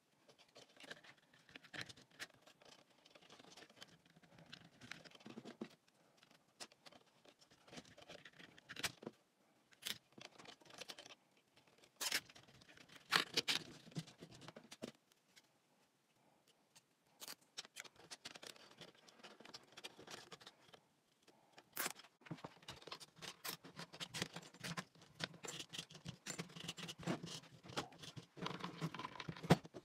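Nylon cable ties being threaded and pulled tight around an angle grinder's body, their locks clicking, mixed with scratching and light knocks as the tool is handled on a wooden block.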